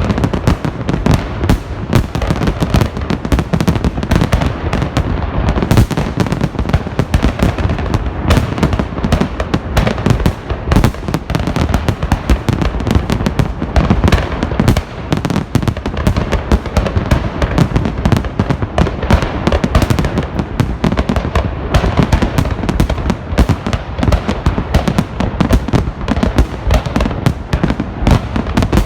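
A large fireworks salute: a dense, continuous barrage of shells bursting and banging, many overlapping with no pause.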